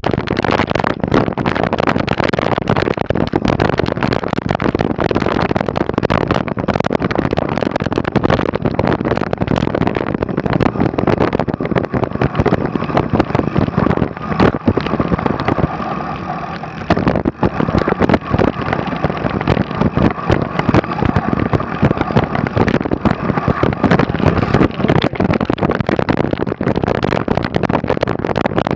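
Mountain bike ride noise: a continuous dense clatter and rattling of the bike over rough, snowy trail, briefly easing about two-thirds of the way through. A faint steady whine runs through the middle stretch.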